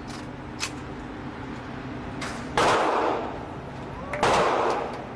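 Two loud gunshots about a second and a half apart, each trailing off briefly, with a sharp click shortly before them.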